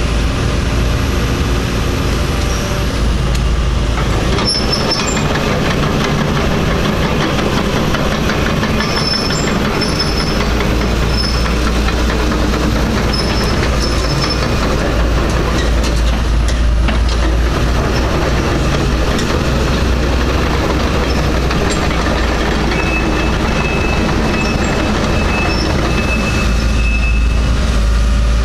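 Hitachi Zaxis 225 hydraulic excavator's diesel engine running steadily under load while its hydraulics work the boom and arm. Brief thin high squeals come and go over the running.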